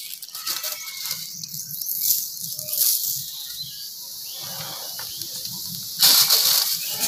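Coca-Cola fizzing and hissing as it foams up out of the bottle after salt is poured in, with a louder rush of noise for about a second near the end.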